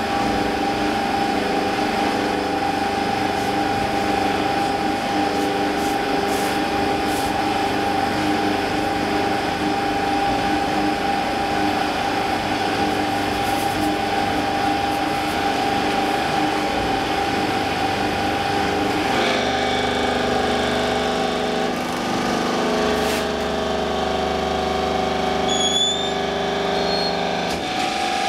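Hydraulic brick press running: a steady machine hum with several fixed tones. About two-thirds of the way through the tones shift and a deeper drone joins, as the press's ram moves down onto the mould.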